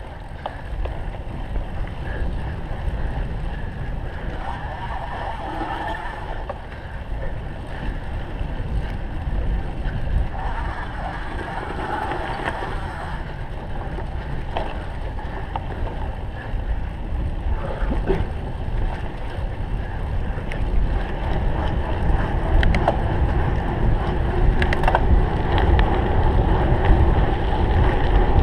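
Wind buffeting the microphone of a cyclocross bike moving over rough ground, with scattered sharp clicks and rattles from the bike. The rumble grows louder toward the end.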